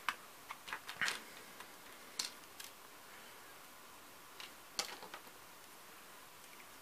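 Small plastic Playmobil pieces clicking and tapping as they are pressed into the tree model and handled on a metal tabletop: a few sharp clicks in the first second, one or two more around two seconds in, and another short cluster near five seconds.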